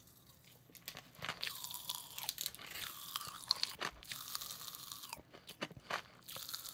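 Three packets of strawberry popping candy crackling and popping in the mouth: a dense fizz of tiny pops that starts about a second in.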